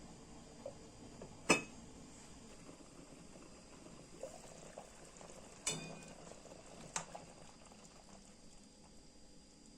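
Taro cooking in a pot of hot liquid, a steady faint bubbling hiss, with three sharp clicks or knocks about a second and a half, five and a half, and seven seconds in.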